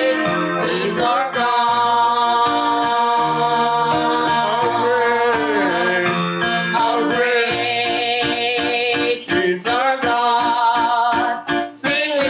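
Gospel worship song: a singer holds long notes with vibrato over a steady instrumental accompaniment.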